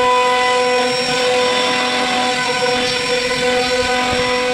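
CNC router spindle running with its carving bit cutting a zigzag relief into a hardwood board: a steady whine over the rasping noise of the cut.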